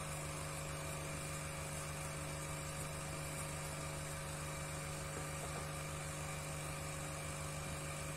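A steady machine hum with a fast, even flutter low down, unchanging throughout.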